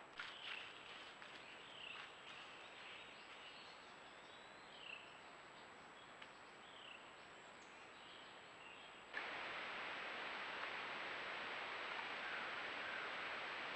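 A few short, falling bird chirps and light rustling and ticking in leaf litter over a faint hiss. About nine seconds in, the sound switches abruptly to a steady, louder hiss.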